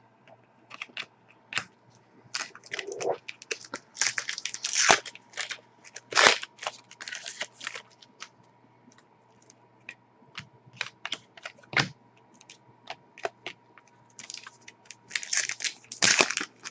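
Trading cards being handled and flipped through by hand: an irregular run of light clicks and short rustles, busiest about four to seven seconds in and again near the end.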